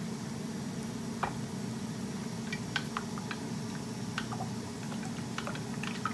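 Air fryer running with a steady fan hum, with scattered light clicks and taps of a small bowl and utensils being handled at the counter.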